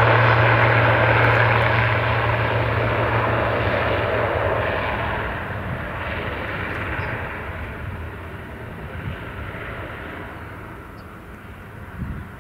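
Twin turboprop engines of an ATR 72-500 running at takeoff power, a steady low propeller drone over a broad engine rush. The sound fades steadily as the plane rolls away down the runway, and the low drone dies out about four seconds in.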